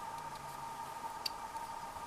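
Quiet room tone: a faint steady high whine, with one soft tick a little past halfway.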